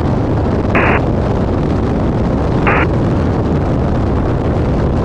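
Cessna 172 Skyhawk engine and propeller drone heard in the cabin, a steady rumbling noise. Two brief hissing bursts come through, about a second in and again near three seconds.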